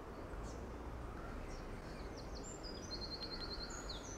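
A small songbird singing a quick run of high notes with a rapid trill in the middle, beginning about a second and a half in, over steady low outdoor background noise.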